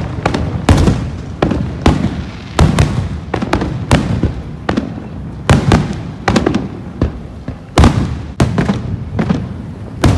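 Aerial firework shells bursting overhead in a steady barrage, about one to two sharp bangs a second, each trailing off in an echoing rumble.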